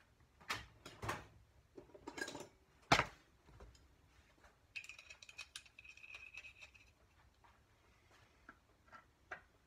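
Metal hand tools clinking and clattering as they are picked up and handled, with a sharp knock about three seconds in. This is followed by about two seconds of thin metallic scraping and ringing, then a few light ticks near the end.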